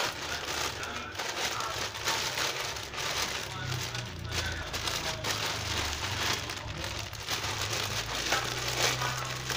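Plastic courier bag and inner plastic wrapping crinkling and rustling, handled and pulled open by hand.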